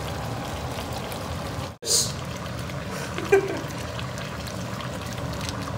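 Coconut milk poured from a carton into a pan of pork adobo simmering with a steady bubbling hiss. After a brief cut about two seconds in, the pan simmers on while a slotted spatula stirs it, with one sharp knock against the pan a little past halfway.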